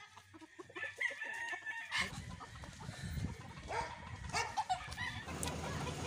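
Gamecocks crowing and clucking, several separate calls at intervals over a low steady background.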